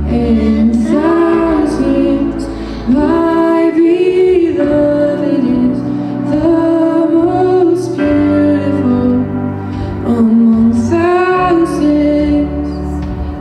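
Music: a woman singing held, gliding notes over instrumental accompaniment.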